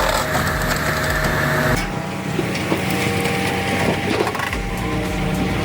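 A heavy wood-processing machine runs with a steady engine hum while wood is crushed and splintered. The machine sound changes abruptly about two seconds in.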